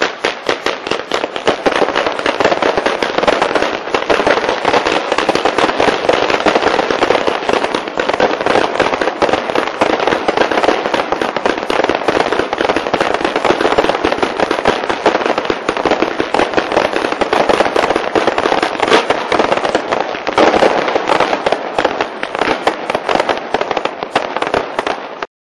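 Pirotecnia Caballer fireworks display firing a dense, nonstop barrage of crackling stars and bangs, the reports coming too fast to count. It cuts off suddenly near the end.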